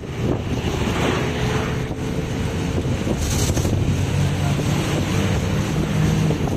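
Engine and road noise of a moving vehicle: a steady rumble with a low engine hum, and wind buffeting the microphone.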